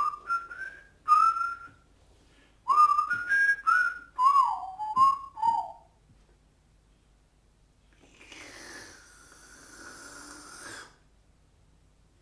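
A person whistling a short tune in quick phrases that glide up and down in pitch. After a pause, a longer breathy whistle falls in pitch near the end.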